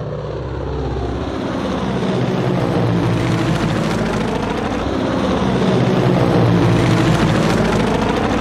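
Four-engine propeller transport plane flying past, its piston engines droning and building to their loudest about two-thirds of the way in, then easing off as it moves away, the pitch sliding as it passes.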